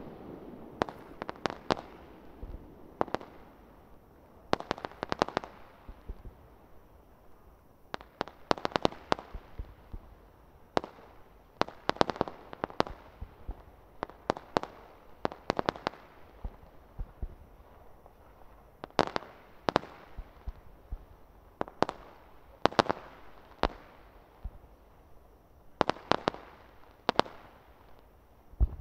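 Aerial fireworks bursting in a display: clusters of sharp bangs and cracks, a few in quick succession, then a short pause before the next volley.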